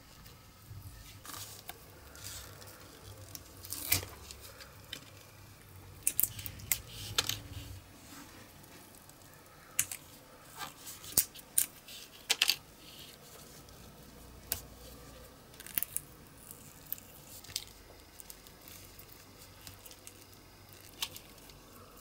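Silicone mould being flexed and peeled open by hand, the cast pieces cracking free: irregular sharp crackles and clicks with soft squishing, in bunches about 4, 6 to 7, 10 to 12 and 16 to 17 seconds in.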